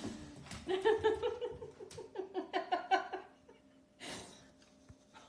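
A voice making a quick run of short, high-pitched repeated notes, about four or five a second, for two to three seconds. It is followed by a brief breathy rush about four seconds in.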